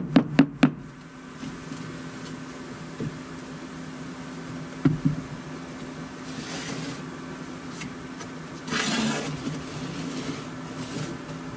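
Hand sanding of milled thin plywood parts: two short rasping strokes about six and nine seconds in. A few sharp clacks near the start and a knock about five seconds in, over a steady low hum.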